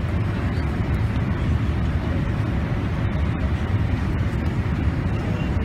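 Steady low cabin noise of a Boeing 787 during descent, from its jet engines and the rush of air past the fuselage, heard from a window seat.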